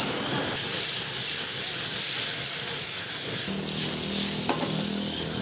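Handheld butane gas torch hissing as its flame plays over frying pans of sizzling steak. A steady low hum joins about three and a half seconds in.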